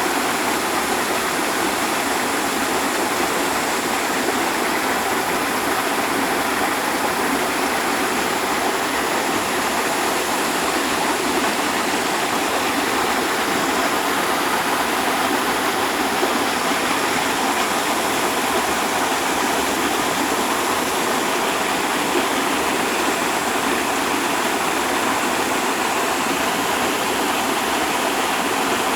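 A waterfall: falling water making a steady, even noise that does not change.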